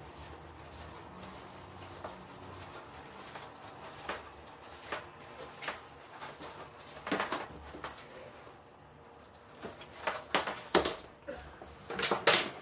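A string of irregular knocks and clicks over a low steady hum, growing louder and more frequent toward the end.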